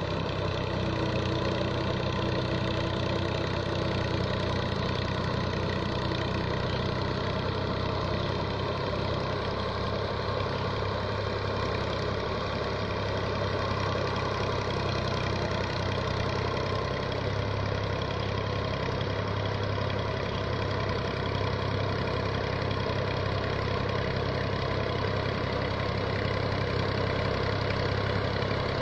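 Tractor's diesel engine running steadily while puddling a flooded paddy field, with an even, unchanging drone.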